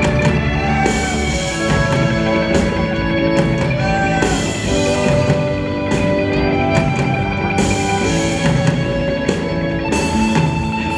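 Live band playing an instrumental passage: drum kit and electric guitar over held chords, steady and loud.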